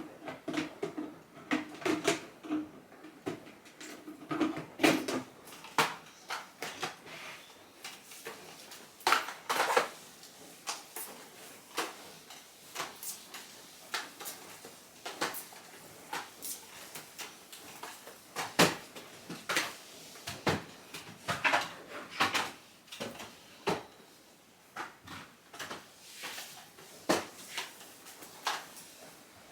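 Irregular knocks, clicks and clatters of household objects being handled, one to a few a second, with a brief low tone under the knocks in the first few seconds.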